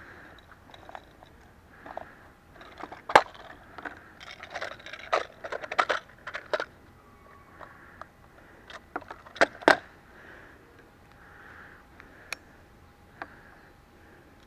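Small metallic clicks and rattles from loading .22 cartridges one by one into the cylinder of a Heritage Rough Rider single-action revolver, with a few sharper clicks as the cylinder is turned and handled.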